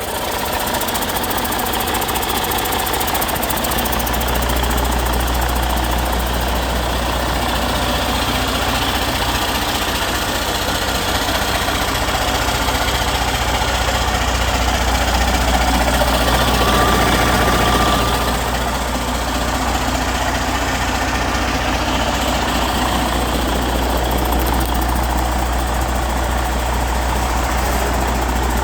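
2015 Detroit DD15 14.8-litre inline-six diesel engine running on a test run, a steady diesel clatter over a deep hum. It gets louder in the middle and settles back down about two-thirds of the way through.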